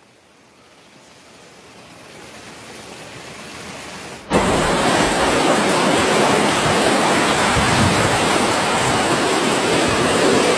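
Steady rushing of water in flood footage: a faint hiss building slowly, then, after a sudden cut about four seconds in, a loud even rush.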